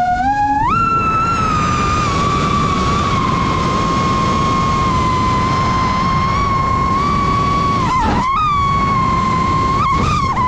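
iFlight Titan DC5 FPV quadcopter's brushless motors and propellers whining in flight, the pitch jumping up sharply on a throttle punch about a second in, then holding fairly steady with two brief dips and recoveries near the end as the throttle is eased and reapplied. A steady rushing noise runs underneath.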